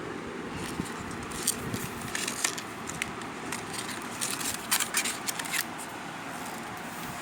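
Irregular short crackles and clicks of something being handled, bunched between about a second in and five and a half seconds in, over a steady hiss.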